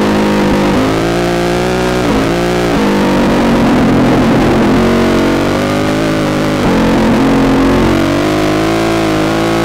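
Off-road racing motorcycle engine running hard, its pitch climbing and then dropping sharply several times, heard from the rider's helmet camera.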